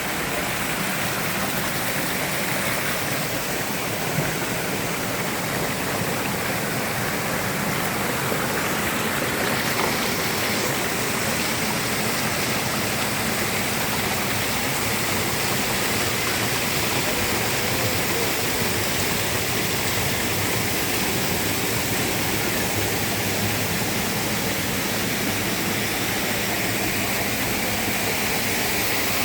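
Steady rush of water driving a traditional water mill, an even, unbroken noise.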